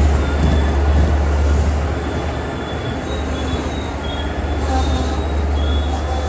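Long Island Rail Road diesel train moving through, with a steady low rumble and short, high wheel squeals coming and going.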